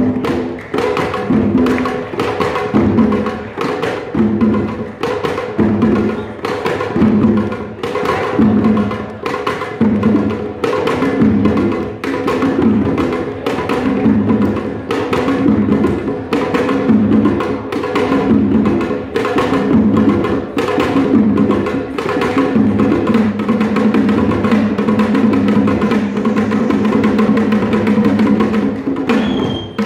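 Senegambian drum ensemble playing live: a fast, dense rhythm of sharp drum strokes in a repeating pattern, becoming a near-continuous roll in the last several seconds.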